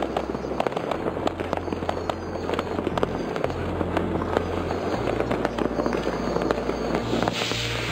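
Dense crackling and many sharp bangs of New Year's Eve fireworks and firecrackers going off, with a steady low bass line of music underneath.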